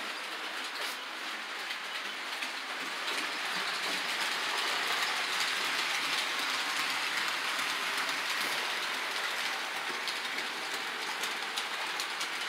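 Electric model train running around its track loop: a steady mechanical whir and rattle of the locomotive's gears and wheels on the rails, growing a little louder a few seconds in.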